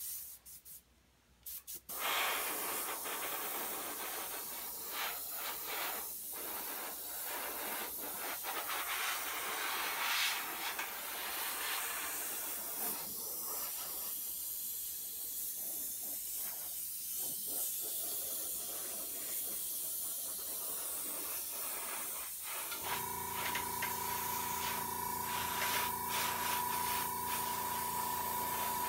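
Iwata airbrush hissing as it sprays paint, in long stretches with short breaks as the trigger is eased. Near the end the hiss gives way to a steady hum with a constant tone.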